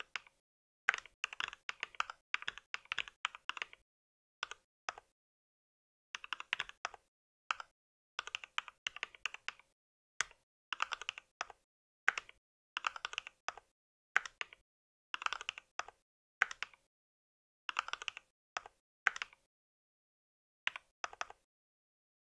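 Typing on a mechanical keyboard: quick runs of clicking keystrokes in bursts of a second or so, with short pauses between them.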